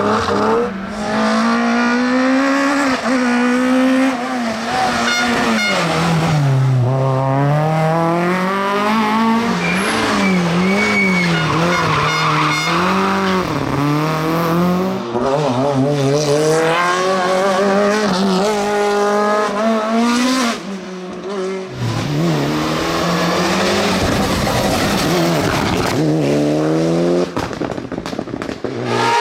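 Competition car engine at high revs, climbing and dropping in pitch again and again as it changes gear and lifts for corners, with some tyre squeal.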